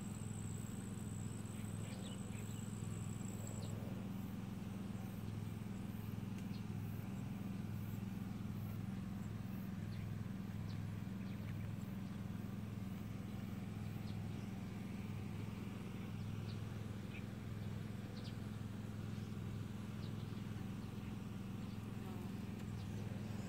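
A steady low buzzing hum, with a thin high whine that stops about four seconds in and scattered faint ticks.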